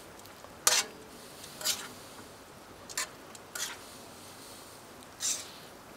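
Metal tongs clacking and scraping against a Muurikka steel griddle pan as noodles and vegetables are tossed, about five short strokes spread through, over a faint steady sizzle.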